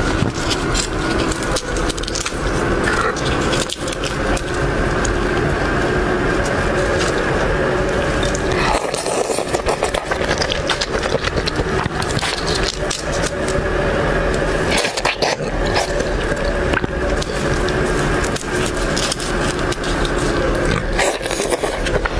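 Close, wet crackling and squelching as raw soy-marinated red shrimp are peeled and torn apart with gloved hands, mixed with chewing. A steady hum sits underneath.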